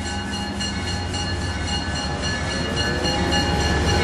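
Amtrak Acela Express trainset passing close by, its bell ringing fast with several steady ringing tones, over the rumble of the train, which grows louder as it goes by.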